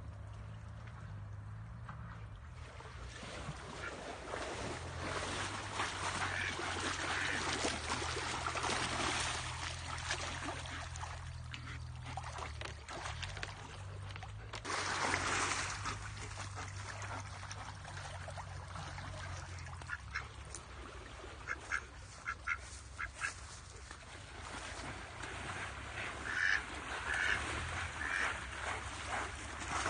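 Mallard ducks quacking in short calls, a run of them about two-thirds of the way through and more near the end, over the rush of a flowing muddy stream.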